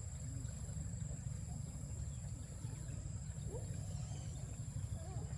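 Outdoor background: a steady high-pitched whine and a low rumble, with faint distant voices about three and a half seconds in.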